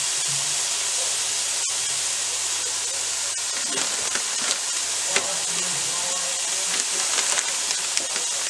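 Diced onion, celery and bell pepper sizzling in oil in a skillet: a steady frying hiss with scattered pops and crackles that come more often in the second half.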